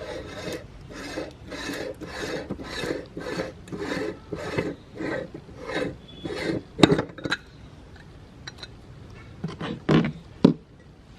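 Meat grinder grinding jelly candy, with a rasping stroke repeating about twice a second. After about six seconds the strokes give way to a few scattered clicks and knocks.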